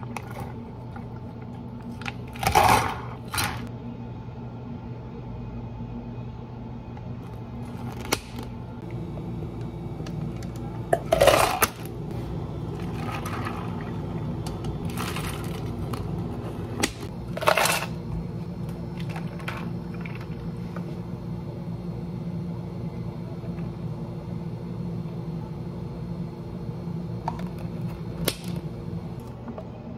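Iced drinks being made in plastic cups: liquid pouring over ice, with clinks and knocks of ice and cups half a dozen times, the loudest a little after two seconds in, near the middle, and a little past halfway. A steady low hum runs underneath.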